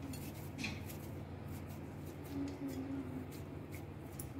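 Faint handling noise of dough being pulled apart into portions in a steel bowl: scattered soft clicks and rustles over a steady low hum.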